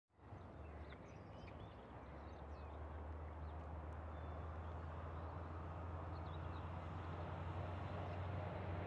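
Airport fire engine running as it drives along the perimeter, a steady low engine hum that grows slowly louder as it approaches. A few faint bird chirps sound early on and again near the middle.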